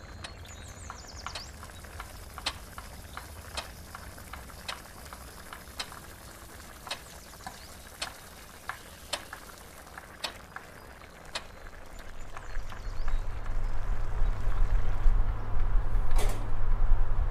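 Wall clock ticking, sharp clicks about once a second. About two-thirds of the way through, a deep steady rumble swells in and becomes the loudest sound.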